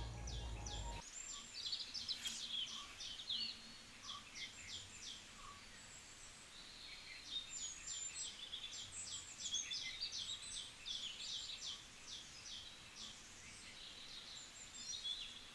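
Faint bird calls: runs of short, high, repeated chirps, coming and going, over a quiet outdoor background.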